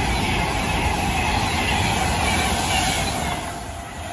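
Class 390 Pendolino electric train passing at speed: a steady rush of wheels on rail and air with a faint steady whine, dying away about three and a half seconds in as the last carriages go by.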